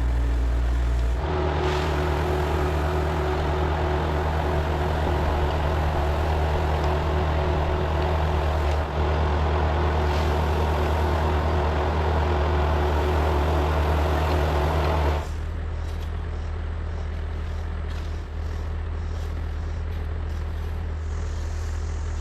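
Diesel engine of heavy earthmoving machinery running steadily, with its sound changing abruptly about a second in and again around fifteen seconds, after which it is lower and quieter.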